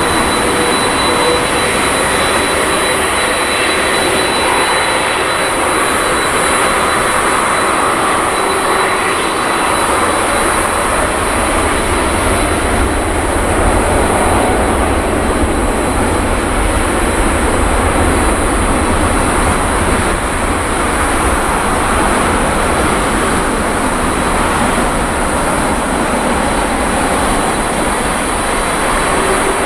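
Boeing 787-8 Dreamliner's Rolls-Royce Trent 1000 jet engines running loud and steady on the runway for take-off. A deep rumble builds through the middle, with a thin steady high whine above it.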